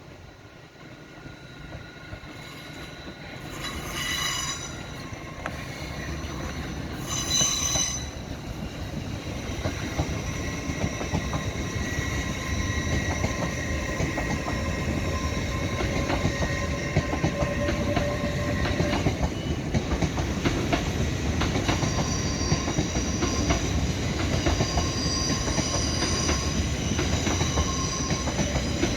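A train rumbling in along the rails, growing louder over the first several seconds and then running steadily, with wheels squealing on the track. Two brief shrill sounds come about four and seven seconds in.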